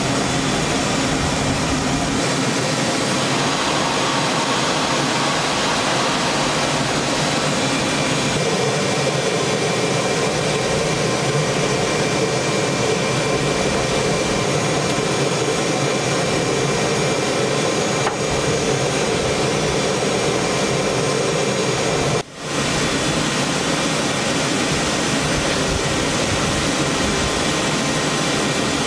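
AH-64D Apache Longbow turbine engines running: a steady jet-like noise with a few thin whining tones. It shifts in character about eight seconds in and drops out for a moment about 22 seconds in.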